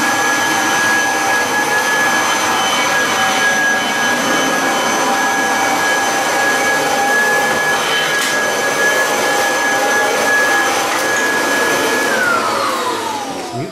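Kirby Heritage 2 upright vacuum cleaner running steadily with a high motor whine, then switched off near the end, its pitch falling as the motor winds down.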